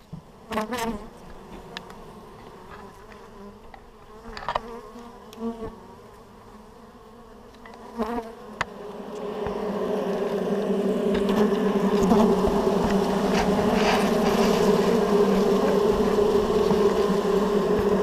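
Honeybees buzzing close up among the hive frames. A few knocks and bumps come first, then about halfway through the buzz swells into a loud, steady hum that holds.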